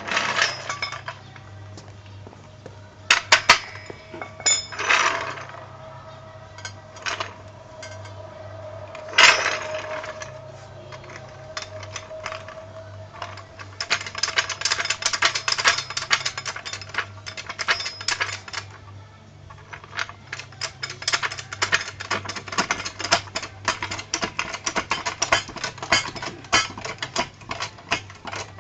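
Hand tools working on a car wheel during a tyre change: a few sharp metal clanks, then long runs of rapid, ratchet-like clicking.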